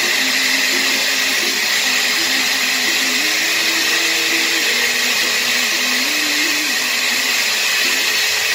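Countertop blender running steadily, churning a thick sauce of yellow chili, cheese, milk and crackers as oil is poured in. Its motor pitch dips and rises a little.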